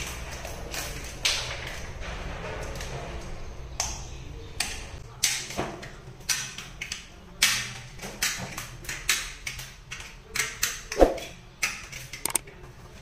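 Hand snips and a small knife cutting and trimming the blue plastic protective cover around a concealed shower mixer body in the wall: a run of irregular sharp snips and cracks, with some scraping.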